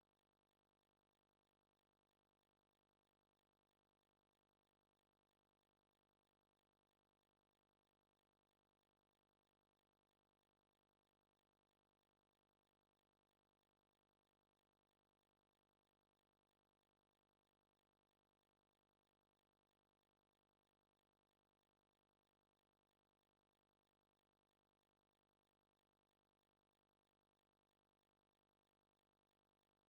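Near silence: a faint, steady noise floor with no distinct sound.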